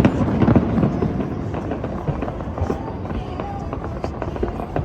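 Fireworks going off in quick succession: a dense run of sharp bangs and crackles over a continuous rumble, loudest in the first second.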